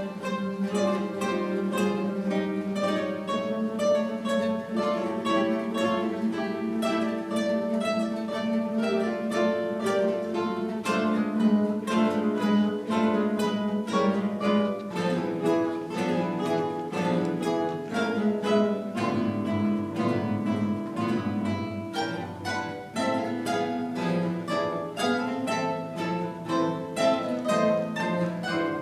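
A guitar ensemble of many guitars playing together live, with rapid plucked notes over a sustained bass line.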